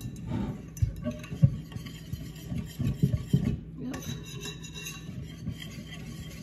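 Wire whisk beating pancake batter in a glass mixing bowl, with irregular clinks and knocks of the whisk against the glass.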